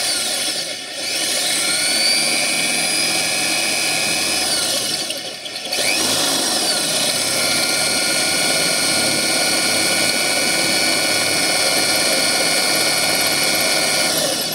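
Electric drill running at speed, boring a hole in the UAZ Patriot's sheet-steel body at the wiper mount. It makes a steady high whine that sags and recovers twice, about a second in and around five seconds. It stops at the end.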